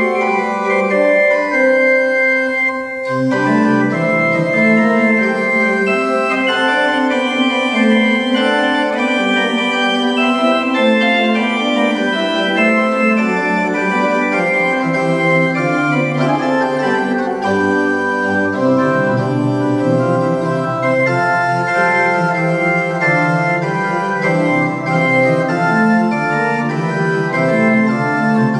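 Organ playing a brisk piece with several lines moving at once, sustained notes changing quickly. A low bass line comes in about three seconds in and drops lower around the middle.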